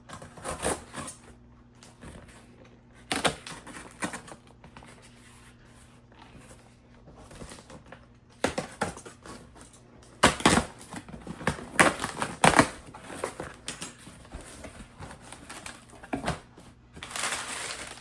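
Cardboard shipping box being opened by hand: irregular clicks, scrapes and rips of tape and cardboard, loudest in a cluster about ten to thirteen seconds in, then a stretch of rustling near the end.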